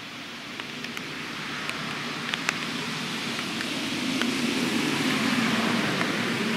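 A distant vehicle passing, its engine and rushing noise swelling over about five seconds and easing off near the end, with a few faint short ticks.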